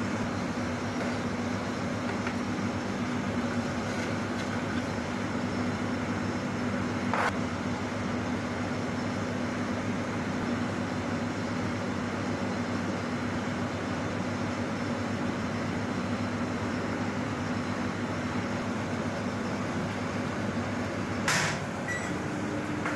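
A steady mechanical hum with a constant low drone, like a motor or fan running without change. It is broken by two short knocks, one about seven seconds in and one near the end.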